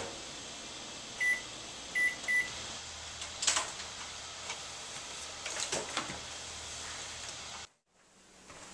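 Microwave oven keypad beeping three times as the heating time is set, then the oven starting up and running with a low hum, with a few light clicks and knocks. The sound cuts off abruptly near the end.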